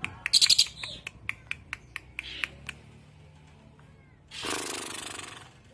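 Lovebird calling: sharp clicks about four a second with a brief shrill burst near the start, then about four seconds in a harsh, rasping, cough-like call lasting about a second.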